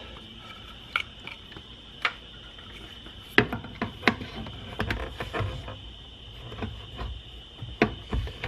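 Irregular clicks and light knocks as a car speaker is plugged into the factory wiring connector and pressed against the door's sheet-metal speaker opening. A steady high-pitched hum runs underneath.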